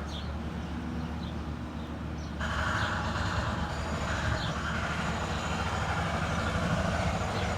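Steady low outdoor rumble, like road traffic, that gets louder about two and a half seconds in, with a few faint short high chirps now and then.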